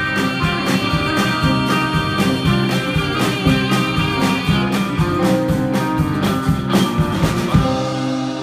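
Live band playing, with acoustic and electric guitars, bass and a steady drum beat. The drums drop out near the end while the guitars ring on.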